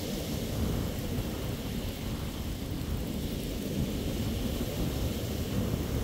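Wind buffeting the microphone in a steady low rumble, over the hiss and wash of small waves breaking on a sandy beach.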